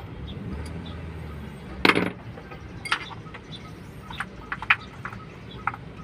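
Hand tools clinking and tapping against metal engine parts, a string of short sharp clicks with the loudest knock about two seconds in.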